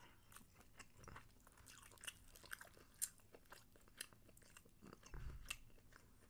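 Faint, scattered clicks and soft crunches of close-miked chewing, with a couple of soft low thumps, one about a second in and one about five seconds in.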